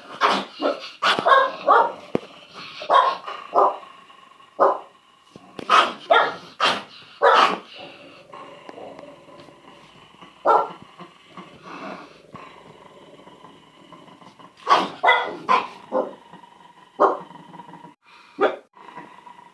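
Dogs barking in irregular clusters of sharp barks, with quieter stretches in between.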